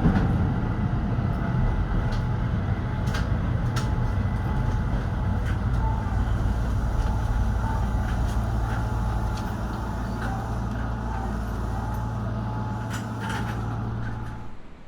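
Keihan 800 series train heard from inside: a steady low drone with scattered light clicks and knocks, easing down a little past the middle and cutting off suddenly near the end.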